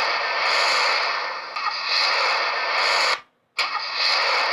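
Cartoon car driving-off sound effect, a harsh, noisy engine-and-road rush coming through a TV speaker. It plays twice, with a brief break about three seconds in.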